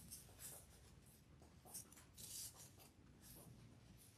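Faint rustling and brushing of ribbon being twisted and looped by hand into a bow, a few soft scratches over near silence.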